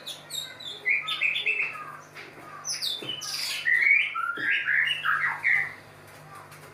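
White-rumped shama singing a fast run of varied whistled phrases that slide up and down, loudest in the middle and ending about a second before the close.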